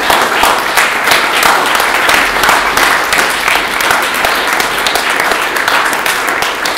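Audience applauding: a sustained round of clapping from a hall full of people, at its fullest early on and easing slightly towards the end.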